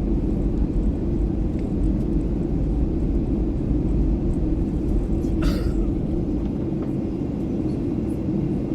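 Airliner cabin noise in flight: a steady low engine and air rumble, with one brief higher-pitched sound about five and a half seconds in.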